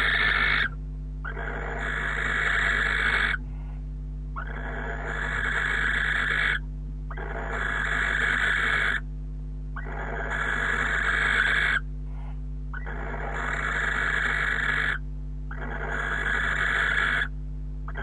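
Barn owl giving long, rasping hisses one after another, each lasting two to three seconds with short pauses between, about seven in a row, over a steady low electrical hum.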